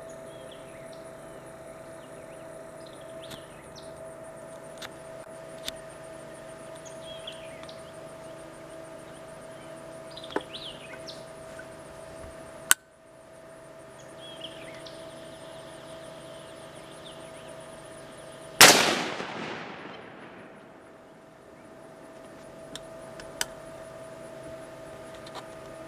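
A single AR-15 rifle shot about two-thirds of the way through, the loudest sound by far, its report fading away over about two seconds. A few small sharp clicks come earlier, over a steady faint hum with faint chirps.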